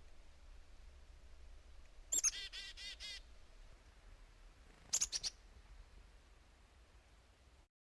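Black-capped chickadee calling: a chick-a-dee call with high opening notes and a string of repeated dee notes about two seconds in, then a few short, high notes about five seconds in.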